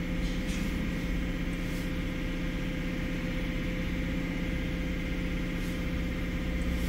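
A steady low mechanical hum, like an engine or machine running, unchanged throughout.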